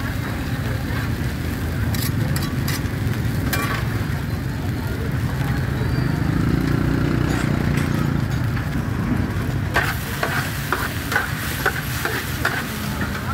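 Food sizzling in a hot pan over a steady low rumble, with a few sharp clicks of a utensil against the pan about two to three seconds in and again near the end.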